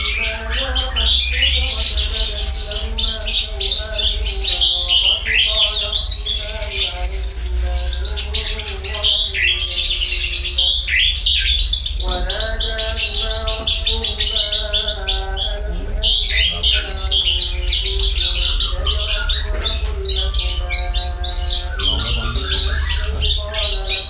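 Branjangan (Horsfield's bush lark) singing a long, fast run of high chirps and trills, over background music.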